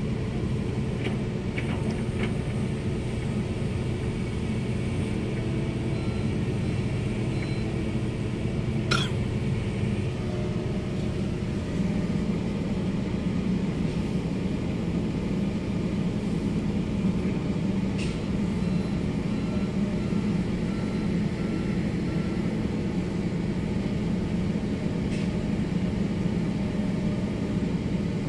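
Heavy diesel excavator engine running steadily, a continuous low rumble. A sharp clank about nine seconds in and a lighter one near eighteen seconds.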